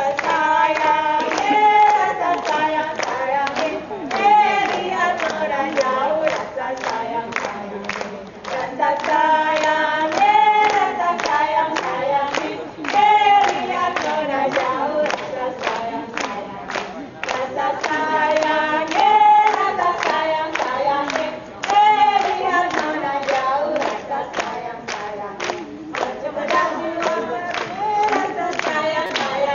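A group of voices singing a song together without instruments, over a steady beat of sharp strikes.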